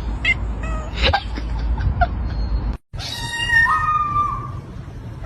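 A cat meowing: short cries in the first half, then one long, drawn-out meow about three seconds in.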